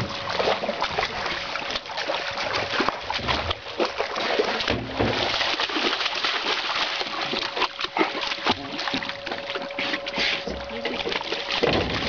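Water splashing and sloshing, with many small irregular knocks and a steady thin tone underneath.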